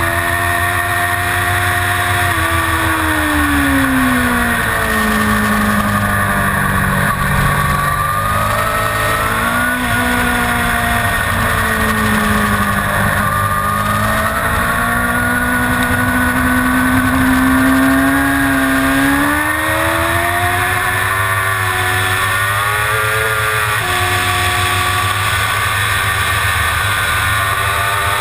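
Suzuki GSX-R750 inline-four motorcycle engine heard onboard, its note falling and rising smoothly several times as the rider rolls off and on the throttle, then holding fairly steady in the last few seconds.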